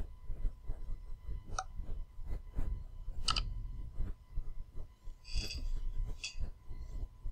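Scattered clicks and knocks over a low rumble, with a faint steady high tone: mouse clicks and desk handling noise picked up by a computer microphone.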